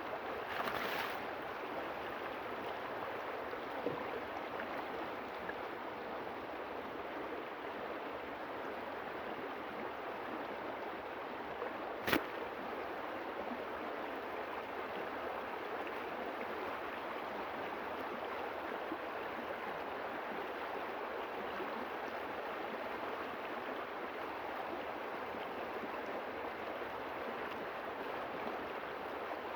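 River water flowing steadily, with one sharp click or knock about twelve seconds in.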